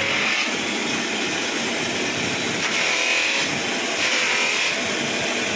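Bat-buffing machine running: a cloth buffing wheel spinning on its motor-driven shaft with the English willow blade of a cricket bat pressed against it, giving a steady whirring hiss that swells a little a few times as the blade is worked on the wheel. This is the final buffing stage that puts the shine on the finished bat.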